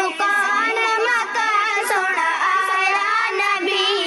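A young girl singing a naat, an Islamic devotional song in praise of the Prophet, in a high, held and wavering melody.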